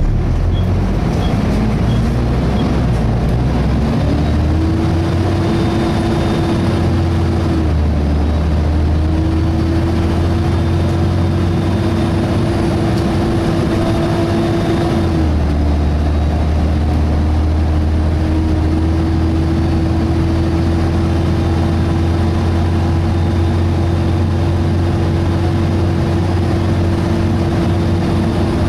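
Volvo B7TL double-decker bus heard from on board: its engine running under way, with a loud cooling-fan whine over a low drone. The whine climbs in pitch over the first few seconds, then holds steady, dipping briefly twice.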